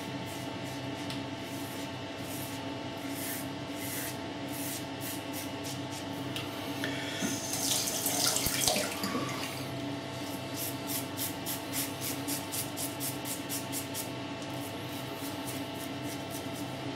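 Fatip Piccolo open-comb safety razor scraping through stubble in a quick series of short strokes, about two to three a second. About seven seconds in, a tap runs briefly as the razor is rinsed at the sink, then the short razor strokes resume.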